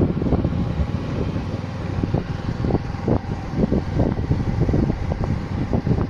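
Motorcycle riding over a rough dirt track: the engine runs steadily under wind buffeting the microphone, with frequent irregular knocks and rattles from the bumps.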